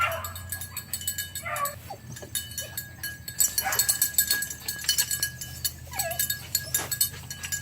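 Young dog giving a few short falling whines or yips amid a steady crackle and rustle of brush as it hunts after a hidden rabbit.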